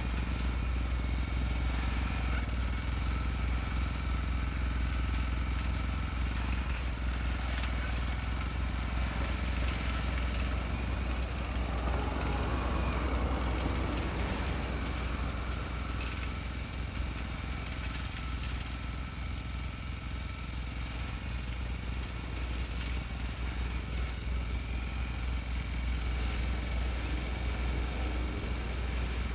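Small engine of a farm cultivator running steadily as it works between rows of crops.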